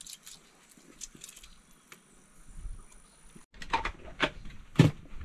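Aluminium foil crinkling as it is folded and sealed over a whole seasoned fish, heard as a quick run of sharp crackles in the second half, after a few faint light ticks.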